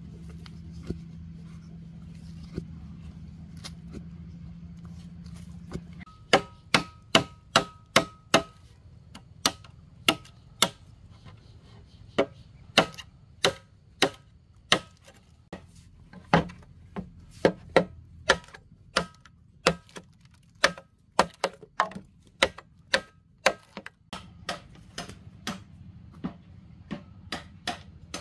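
Hammer driving nails into wood. A quick run of sharp blows with a faint metallic ring is followed by steadier blows about two a second, growing lighter near the end. Before the hammering there is a low steady hum with a few single knocks.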